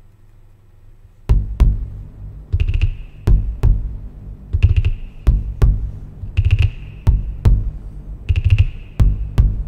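Minimal techno drum-machine beat from a Native Instruments Maschine Mk2, starting about a second in. Low kicks and sharp clicks, with a short hissing burst that comes back about every two seconds.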